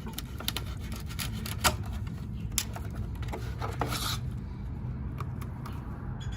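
Knife scraping, prying and cutting at a car-audio subwoofer's innards: irregular scratches and clicks, with one longer rasp about four seconds in, over a steady low hum.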